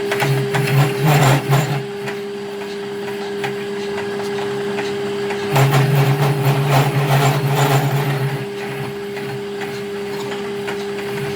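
A workshop machine's electric motor running with a steady hum. Twice it is joined by a rougher stretch of tool-on-metal working noise: briefly about a second in, and again for about three seconds from the middle of the stretch.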